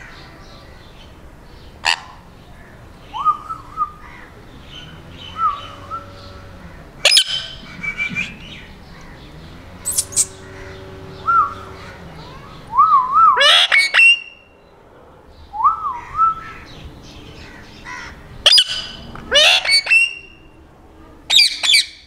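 Indian ringneck parrot calling: several loud, sharp screeches spread through, with quieter short warbling whistles in between.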